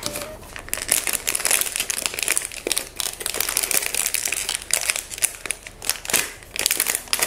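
Foil blind-box bag crinkling as it is handled and torn open at the top: a dense, irregular run of crackles.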